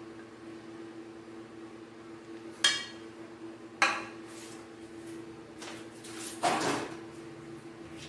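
Stainless steel bowl knocked and clinking as salad is tossed in it: two sharp metallic knocks with a short ring about three and four seconds in, then a longer rustling scrape around six to seven seconds. A steady low hum runs underneath.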